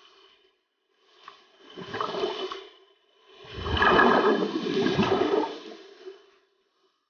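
A scuba diver breathing through a regulator underwater: two rushing breaths of air and bubbles, the second, about three seconds in, longer and louder, with a low rumble.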